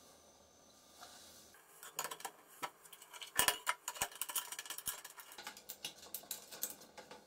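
Metallic clicking and rattling as a hand moves a circular saw blade in the metal insert of a homemade table saw, starting about two seconds in and loudest at a quick clatter around the middle, with a couple of single knocks and lighter clicks after.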